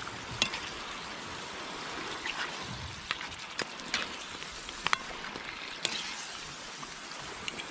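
Puffer fish cooking in coconut milk in a pan, sizzling and bubbling as the milk reduces: a steady hiss with a few sharp pops scattered through it.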